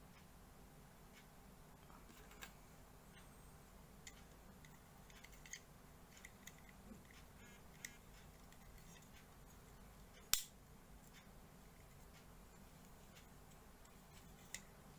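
Faint, scattered clicks and taps of hard plastic SD Gundam model-kit parts being handled and pressed together, with one sharper snap about ten seconds in.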